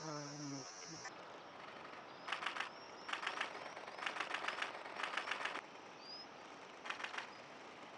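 Birds calling: bouts of rapid, dry rattling trills, each about half a second long and repeated several times, with short high rising chirps between them. A brief low call sounds at the very start.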